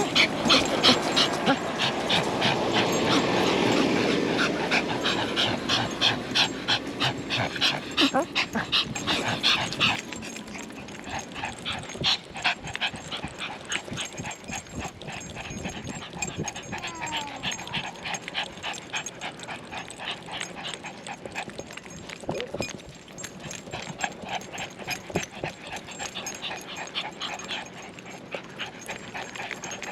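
Dog panting quickly and rhythmically, about three breaths a second, picked up close by a camera worn on the dog. It is louder for the first third, then continues more quietly.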